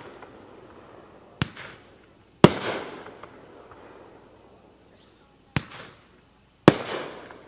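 A 16-shot consumer fireworks cake (Magnus Fireworks "Stoned to the Bone") firing: four sharp bangs in two pairs, a lighter bang followed about a second later by a louder one. Each pair is a shot lifting from its tube and then breaking in the air. The louder bursts trail off over a couple of seconds.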